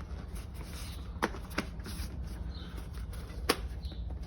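Hands working a bicycle tire's bead over the rim: rubber rubbing and handling noise with three sharp snaps, the loudest about three and a half seconds in.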